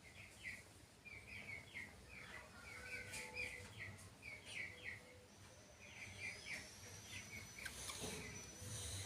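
Small birds chirping: short, high chirps in quick clusters of two to four, repeated over and over, over a faint low background hum.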